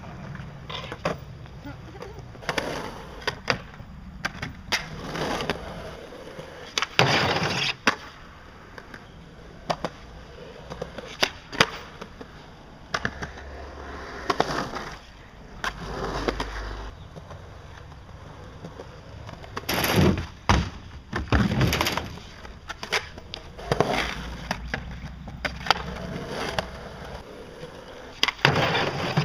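Skateboard wheels rolling on concrete, broken by many sharp clacks and impacts as the board is popped, lands and hits the wooden ramps and box.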